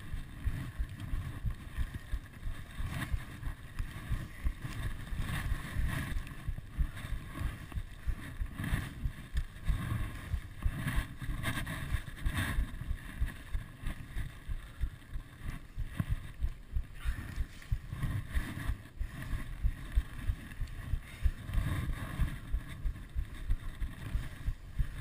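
Wind rumbling on the microphone, with regular thuds of snowshoe steps through deep snow.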